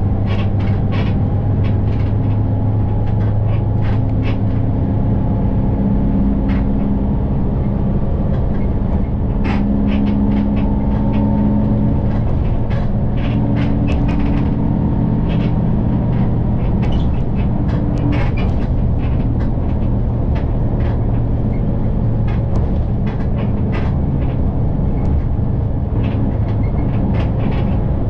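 Inside a moving city bus: a steady low drivetrain hum and road noise, with slowly shifting tones as the bus changes speed and frequent short rattles and clicks from the bus's fittings.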